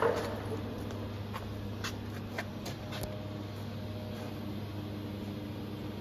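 Steady low hum of a powered-up Haas VF-8/40 HE vertical machining centre, its cabinet fans and electrics running with no cutting. A few light knocks and taps in the first half.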